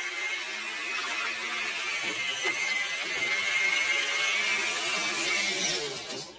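Traxxas TRX-4 RC crawler's electric motor and geared drivetrain running with a steady high whine, mixed with tyres splashing and scrabbling through shallow water over rock. It grows louder as the truck comes close, then drops off sharply near the end.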